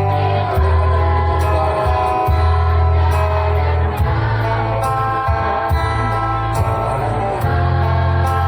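A choir singing over a music accompaniment with a heavy bass and a steady beat.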